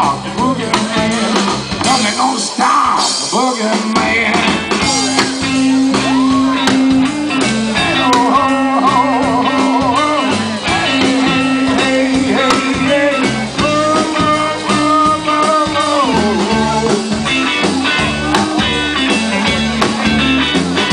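Live blues-rock band playing an instrumental break: an electric guitar lead with bent, wavering notes over a repeating bass line and drum kit.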